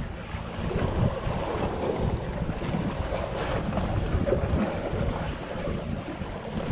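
Wind buffeting the microphone, a steady low rumble over the wash of waves against the rocks.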